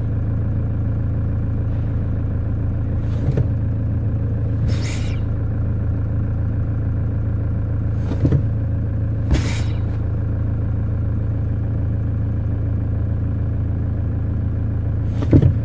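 Toyota Hilux engine idling steadily, heard close to the brake pedal, with several short hisses of air from the newly replaced brake booster as the pedal is pressed. The brief hiss at the start of pedal travel is normal for the booster; no continuous hissing leak is heard.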